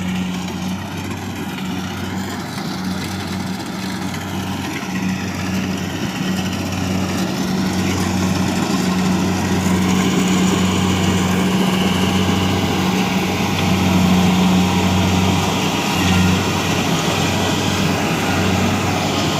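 A heavy engine running steadily with a low hum, gradually getting louder, typical of machinery at work in a paddy harvest.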